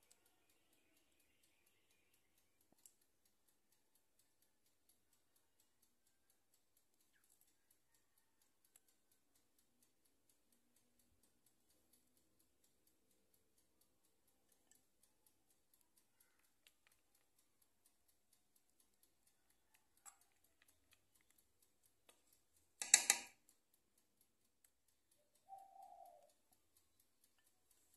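Very quiet soft clicks and taps as cake batter is spooned into a parchment-lined loaf pan. Near the end comes one brief, sharp clatter of a utensil knocking against cookware, and shortly after it a faint short bird call.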